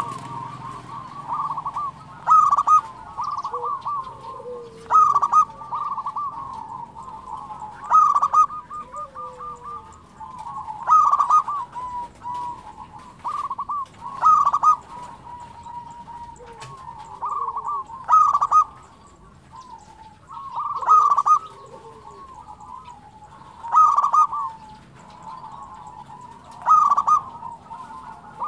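Zebra dove (perkutut) singing: a loud, rolling, staccato cooing phrase repeated about every three seconds, about ten times.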